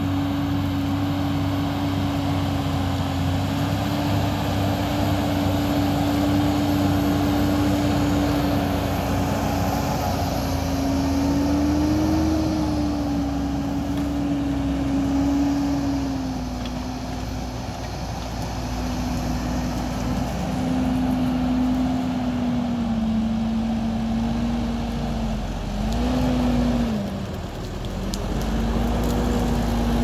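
Fendt 718 Vario tractor's six-cylinder diesel engine running under load while pulling a mounted plough. Its note holds steady at first, then dips and rises several times in the second half.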